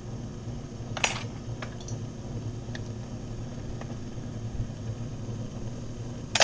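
Electric motor of a key-duplicating machine humming steadily, with a few light metallic clicks and taps as the cutter depth is adjusted. A louder scraping noise comes right at the end.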